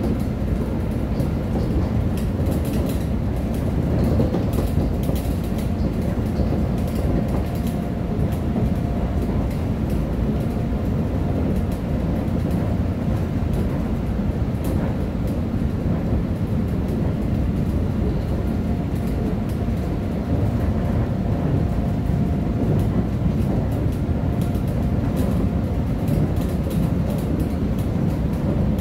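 Interior running noise of a Korail 331000-series electric commuter train at speed: a steady low rumble of wheels on rail through the car body, with a faint steady whine that fades in and out twice and occasional light clicks.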